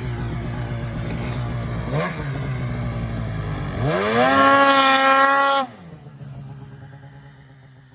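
Polaris 800 RMK snowmobile's two-stroke twin engine running at low throttle, blipped once about two seconds in, then revved hard, rising sharply in pitch and held high for nearly two seconds as the sled lifts its skis in a wheelie. The throttle is cut suddenly and the engine falls quieter as the sled moves off.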